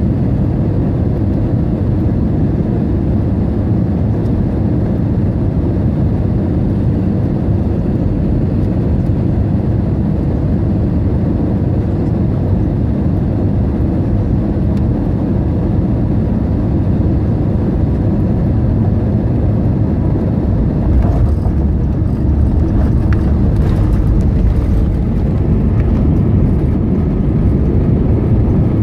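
Airbus A320 cabin noise on final approach: a steady rush of engines and airflow. About 21 seconds in the wheels touch down, and the sound turns to a slightly louder, deeper rumble with a few knocks as the landing gear rolls on the runway.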